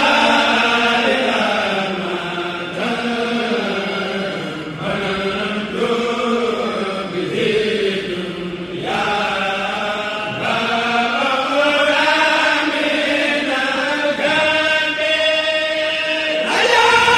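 Xassida, an Arabic Sufi qasida, chanted by a chorus of voices in long, drawn-out melodic lines.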